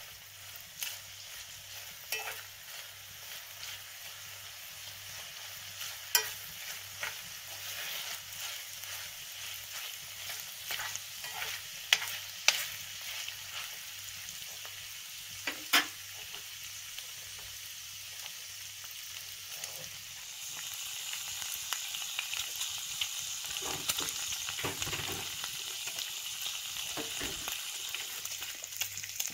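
Chopped bacon sizzling in a cast-iron frying pan during its final fry, stirred with a metal spoon that scrapes and clinks against the pan now and then. The sizzle grows louder in the last third.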